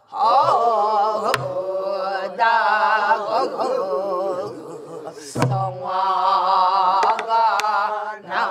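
A group of voices sings a Namdo (southern Korean) folk song in unison, the pitch wavering and bending in wide ornaments. A buk barrel drum is struck with a stick a few times, the clearest stroke about five and a half seconds in.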